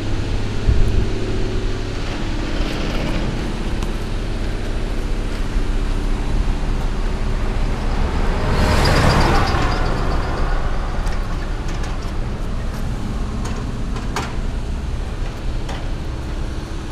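Road traffic: a steady low rumble, with a vehicle passing by that swells and fades, loudest about nine seconds in.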